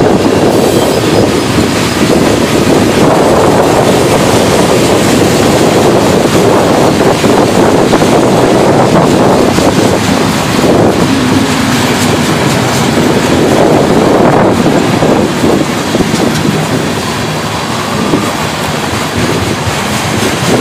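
Freight train cars rolling past close by, covered hoppers and then tank cars: a loud, steady rolling noise of steel wheels on the rails that eases slightly near the end.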